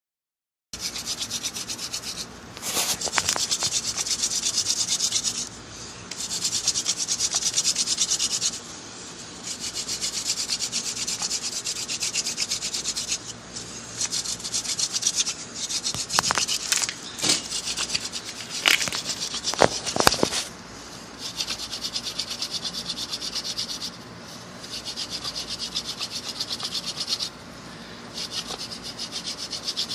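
Hand drill for friction fire: a yucca spindle twirled back and forth between the palms, grinding into a trumpet creeper hearth board with a dry, rasping wood-on-wood rub. It comes in bouts of a few seconds with short breaks between them, and a few sharp clicks come about halfway through.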